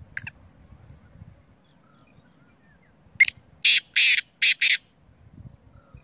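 Black francolin calling: a quick series of five loud, harsh, grating notes about three seconds in, lasting about a second and a half. A brief, fainter double note comes right at the start.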